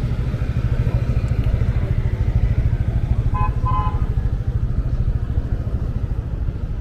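A motorcycle engine running close by with a steady low rumble, and two short beeps about halfway through.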